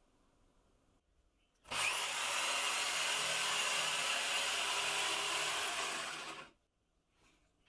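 Bosch circular saw switched on with a high motor whine and run through a crosscut along a guide rail for about four seconds, then switched off, the whine dropping as it winds down before stopping.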